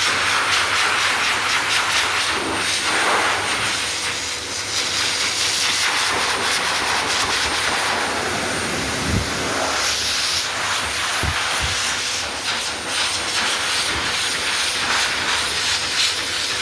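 Pet blow dryer blowing air in a loud, steady hiss, swelling and dipping slightly as the airflow moves over the dog's coat.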